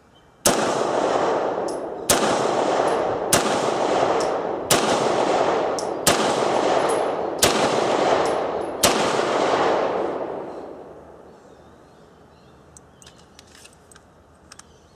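Seven shots from a Beretta 92FS 9mm pistol, fired one at a time about a second and a half apart, each ringing on under the range's roof before the next. A few light clicks follow near the end as the pistol and magazine are handled.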